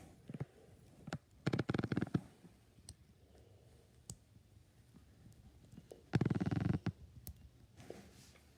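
Handling noise from a small plastic action figure and its parts: scattered light clicks and a few short rubbing bursts, the loudest past six seconds.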